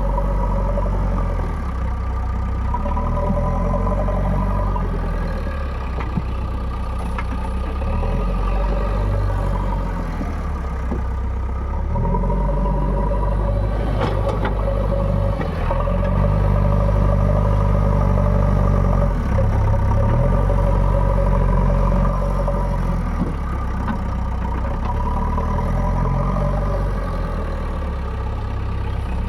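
Backhoe loader's diesel engine running, its speed stepping up and down several times, with a single knock about halfway through.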